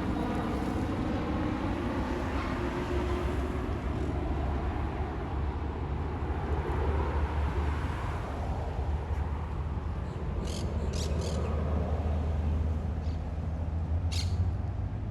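Jet airliner's engines rumbling steadily as it passes on approach, with a few short high-pitched chirps near the end.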